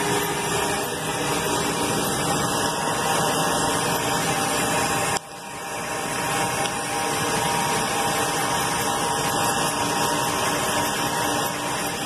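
Steady whir of running rooftop air-conditioning equipment, fan noise with a faint hum. About five seconds in it drops out suddenly and comes back up over a second or so.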